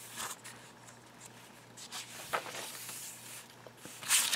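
Paper pages of a handmade journal being handled and turned by hand: a few soft rustles, then a louder page flip about four seconds in.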